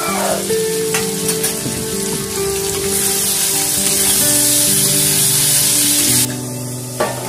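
Long beans stir-frying in a wok, a steady sizzle that gets louder from about three seconds in and drops back shortly before the end, with a metal spatula scraping and clicking against the wok a few times.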